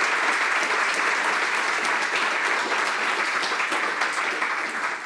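Audience applauding: dense, steady clapping from a large crowd, thinning slightly near the end.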